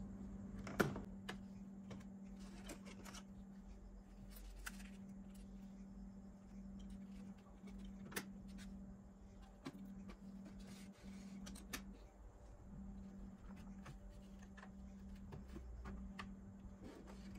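Scattered sharp plastic clicks and knocks from the tape deck keys and cassette door of an old Polytron mini compo boombox being pressed and handled, the loudest about a second in, over a steady low hum.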